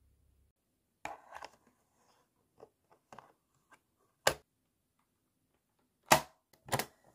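Plastic clicks and snaps of a transparent portable cassette player being handled and loaded with a tape: a cluster of small clicks about a second in, scattered light ticks, a sharp snap a little past the middle, and the two loudest snaps near the end.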